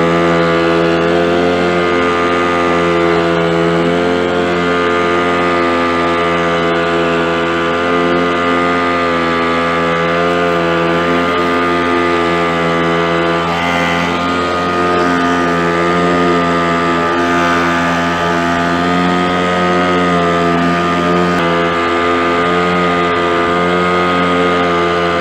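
Small outboard motor on an inflatable PVC boat running steadily at an even speed, a continuous drone that neither rises nor falls.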